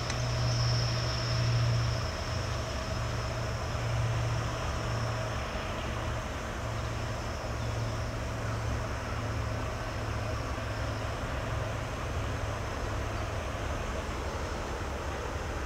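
Railway locomotive running as it moves away along the station tracks: a steady low hum, with a faint high whine that fades over the first few seconds.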